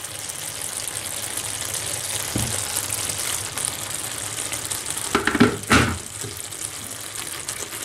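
Ground beef and shredded white cabbage sizzling steadily in a frying pan with a splash of water added, stirred with a wooden spoon. The spoon knocks against the pan once about a third of the way in and a few times a little past halfway.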